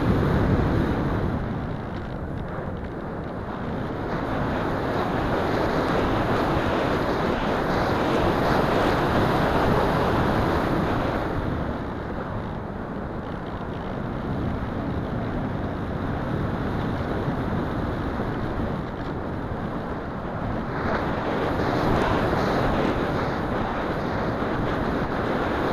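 Airflow rushing over the onboard #16 keychain camera's microphone as the Wing Wing Z84 flying wing flies. It is a rough, even rush that swells and eases in long waves, with no clear steady motor tone standing out.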